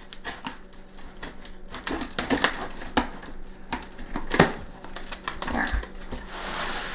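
A knife cutting through packing tape on a cardboard box, with scattered sharp clicks and scrapes of the blade and cardboard. A hissy rasp of tape or cardboard comes near the end.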